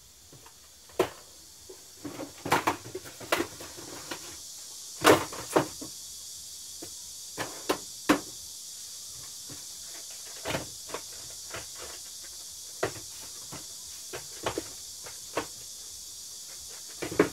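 Plastic cassette tape cases being set down on and knocked against wooden shelves: an irregular series of clacks and taps, some sharp and loud, others light, over a steady hiss that comes in about two seconds in.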